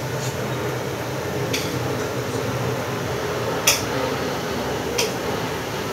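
Kitchen dishes and utensils clinking four times as food is plated, the loudest knock about two-thirds of the way through, over a steady background hum.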